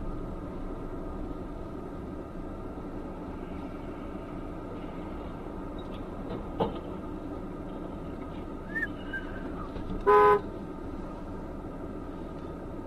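Steady drone of a vehicle on the move, with one short vehicle horn honk about ten seconds in, the loudest sound, and a sharp click a few seconds earlier.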